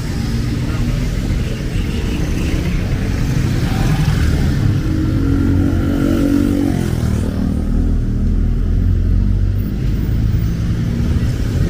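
Street traffic: motor vehicle engines running close by as a steady rumble, with one engine note standing out for a couple of seconds midway and a deeper rumble taking over after about seven seconds.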